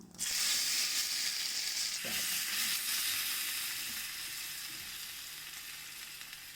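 Hot oil sizzling loudly in a small pan as food is fried, starting suddenly and slowly dying down.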